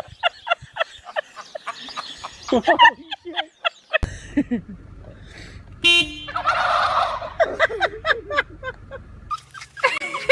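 Turkeys gobbling: several bouts of rapid, rattling gobbles, broken by abrupt cuts between clips.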